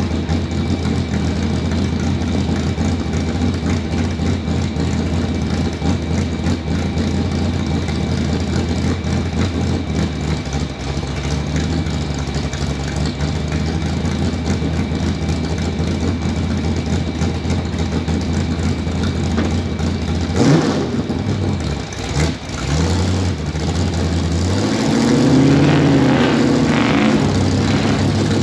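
Truck engine running steadily. From about twenty seconds in it revs up and down several times, the pitch rising and falling.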